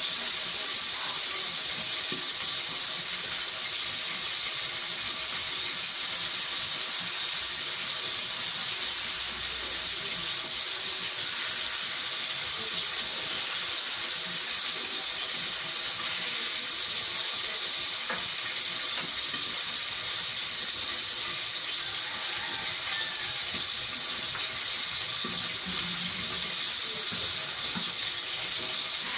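Vegetables sizzling and steaming in a stainless steel pan over a gas flame: a steady, unbroken hiss, with faint clicks of the utensil now and then.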